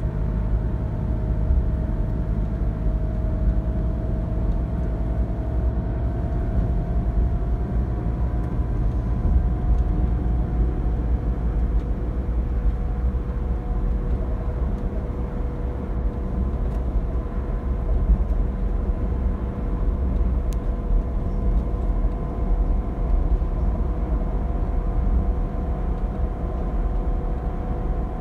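Cabin noise inside a Scania K360 coach under way: a steady low drone from its rear-mounted five-cylinder diesel and the road. A faint whine rises slowly in pitch over the first ten seconds or so, then holds steady.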